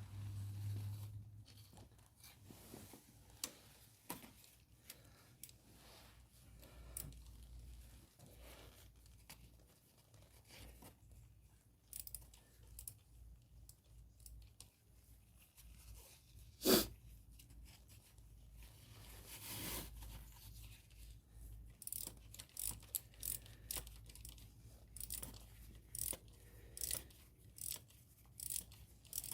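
Faint clicks and scrapes of hand tools working a spark plug in the engine bay, with one sharp metal knock about two thirds of the way through. Over the last several seconds there is a run of short, even clicks, like a ratchet wrench turning.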